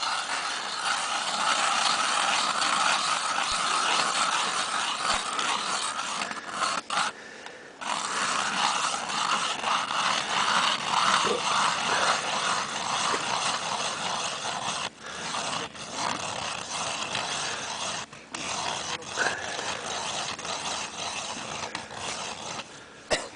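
Hand-crank ice auger grinding and scraping as its blades cut down through lake ice, in a rhythmic churn that stops briefly a few times.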